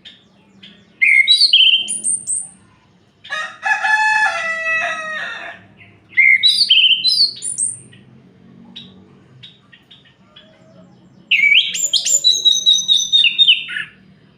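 Orange-headed thrush (anis merah) singing in separate phrases of quick, sliding whistled notes, four phrases in all. The second phrase, a few seconds in, is harsher and raspier than the rest.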